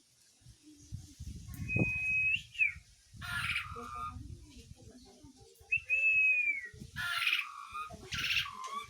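Pied starling (jalak suren) calling: two clear whistles, the first held level and the second arching up and down, between three short harsh, raspy calls. Low rumbling noise runs underneath.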